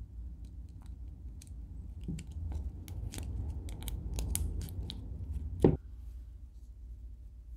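Jointed hard-resin glidebait being turned in the hands: a run of light clicks and taps as the body sections and hardware move. It ends in one louder knock a little past the middle.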